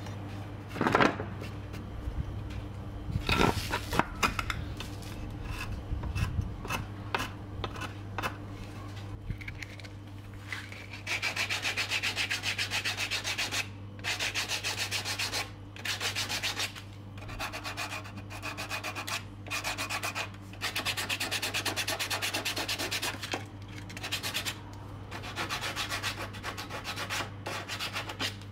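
A small hand plane scraping along the edge of a wooden bed post in a few irregular strokes. From about a third of the way in, a sandpaper-wrapped sanding block is rubbed fast back and forth on the wood, in runs of a few seconds with short pauses between them.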